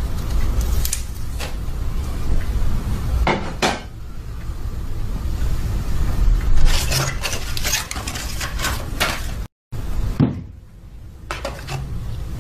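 Small objects being rummaged through and handled in a cardboard box: scattered clinks and knocks over a low steady rumble, with a brief break in the sound about three-quarters of the way through.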